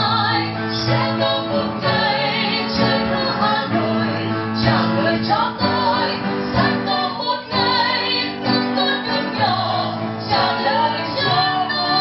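A woman and a man singing together, accompanied by acoustic guitar, the voices held on long notes with vibrato.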